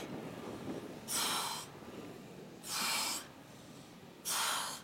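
A woman's forceful exhalations, three short puffs about a second and a half apart: hard breathing from the exertion of non-stop abdominal crunches.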